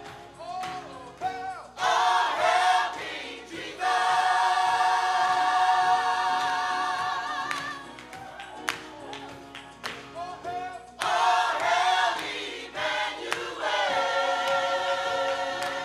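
Gospel choir singing with keyboard accompaniment. The choir swells into long held chords with vibrato twice, with quieter passages in between.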